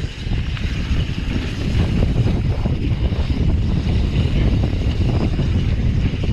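Mountain bike ridden fast down a dry dirt trail: steady wind buffeting the microphone over a low rumble of tyres on hardpacked dirt, with frequent small knocks and rattles from the bike over bumps.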